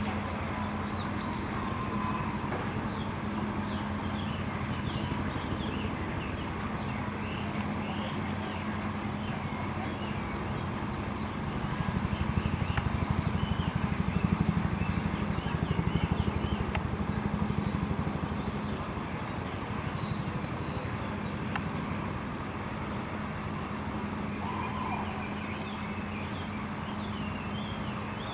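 A steady low mechanical hum, louder for a few seconds midway, with small birds chirping in short, scattered calls over it.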